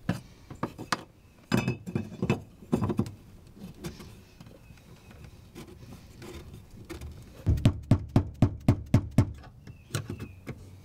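Sharp knocks and taps on the fuel pump assembly's plastic lock ring as it is driven round and tightened into the fuel tank opening, at first a few scattered knocks, then a quick, even run of taps at about five a second.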